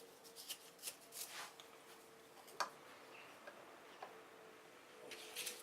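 A few faint, scattered clicks and taps, as of small objects being handled, over a faint steady hum.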